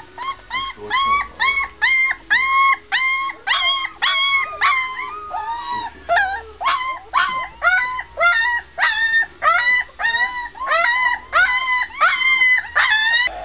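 Three-week-old White Swiss Shepherd puppy whining and crying over and over, about two high calls a second, each rising then falling in pitch.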